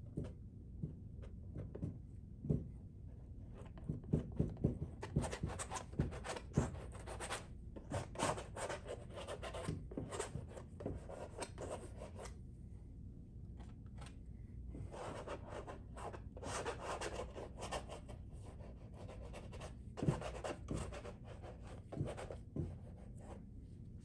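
Palette knife dragging thick oil paint across a canvas: short scraping strokes in runs, with brief pauses between them.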